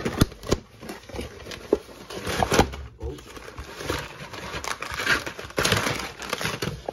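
A cardboard box being handled with scattered clicks and scrapes, then a plastic bag of pink rock-salt crystals crinkling as it is picked up and squeezed, most densely a little past the middle.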